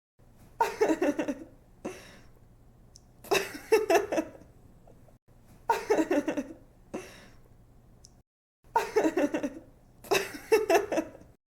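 A young woman giggling in about five bursts of quick, pitched laugh pulses with short pauses between them.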